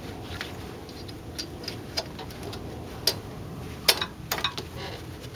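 Irregular light clicks and taps from hands working on small engine parts, about eight in all, the sharpest ones close together near four seconds in.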